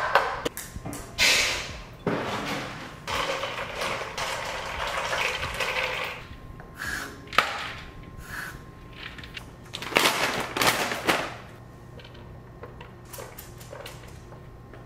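Kitchen sink faucet running in short spells, the longest about four seconds, with knocks and clatter of a bowl being handled at the sink.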